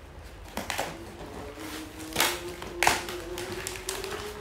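Paper and cardboard gift packaging rustling and crackling as it is torn open and handled by hand, in several short bursts, the two loudest about two seconds in and just before three seconds.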